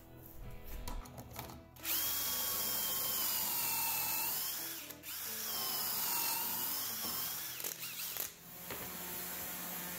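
DeWalt cordless drill boring dowel holes through a doweling jig into the edge of a wooden shelf: two runs of a few seconds each, the motor whine dipping in pitch as the bit bites into the wood and rising again.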